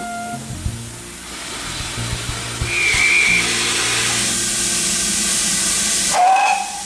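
Steam locomotive hissing steam. A short whistle blast sounds near the end.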